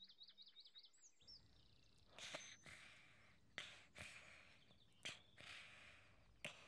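Faint bird chirps for about the first second, then soft breathy sounds about every second and a half, like slow breathing or snoring from a character lying asleep on the grass.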